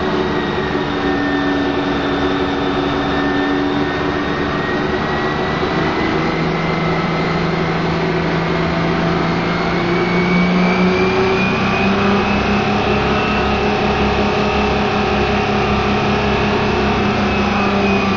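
Submarine diesel engine running loud and steady in the engine room. From about six seconds in its pitch climbs, and from about ten seconds in it runs higher and a little louder as the engine speeds up.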